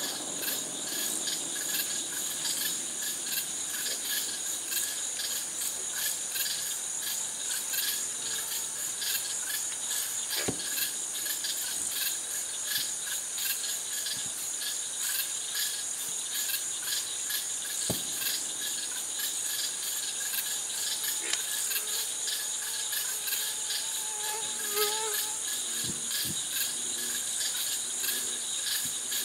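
Steady night chorus of crickets and other insects, a dense high trill with an even, rapid pulse. Two faint thumps come through it about ten and eighteen seconds in.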